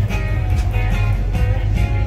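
Rock and roll music with guitar over a strong, steady bass.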